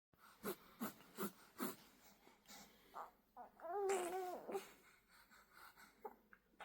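Vocalising with a voice-like sound: four short babbled syllables about a second apart, then a longer wavering note about three and a half seconds in.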